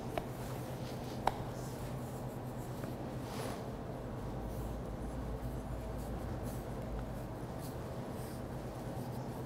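Faint soft pats and rubbing of hands working sticky bread dough on a floured countertop, with a small sharp tick about a second in, over a steady low room hum.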